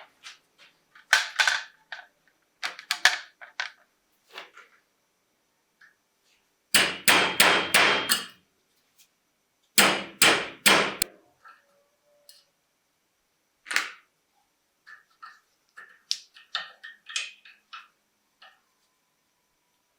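Hammer strikes in short groups of quick blows, with a run of about five rapid strikes in the middle, followed by lighter clicks and taps near the end.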